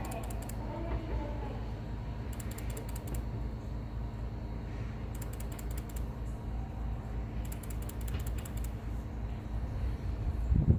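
KiHa 220 single-car diesel railcar drawing into the station: a steady low rumble, with short bursts of rapid clicking every two to three seconds and a brief low thump near the end.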